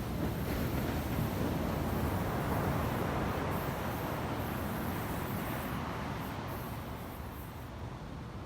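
Rough ocean surf: waves breaking and washing in, swelling a couple of seconds in and easing off toward the end, with wind rumbling on the microphone.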